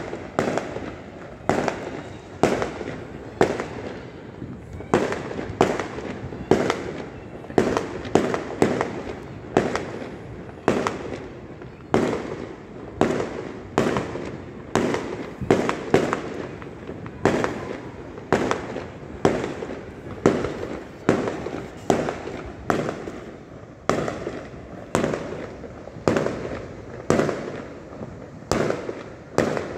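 Aerial fireworks bursting in a steady barrage, with a sharp bang roughly every half-second to second and each bang trailing off briefly.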